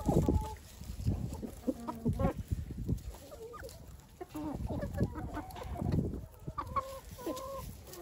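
A flock of domestic hens clucking, many short calls overlapping as they feed, with a few low thuds.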